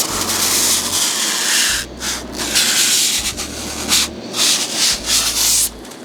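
Rough rubbing and scraping noise in uneven bursts, with short breaks about two and four seconds in.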